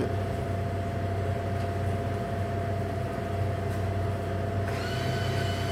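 Steady low electrical hum from a refrigerated drink vending machine. Near the end a high whine starts, rising briefly and then holding, as the bill acceptor draws in a dollar bill.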